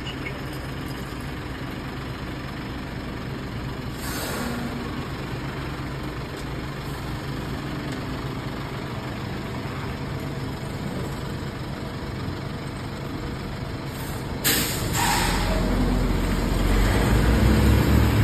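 Heavy semi-truck diesel engine running at low revs while manoeuvring, with short hisses of air brake release about 4 seconds in and again about 14 seconds in. After the second hiss the engine revs up and pulls harder, growing louder toward the end.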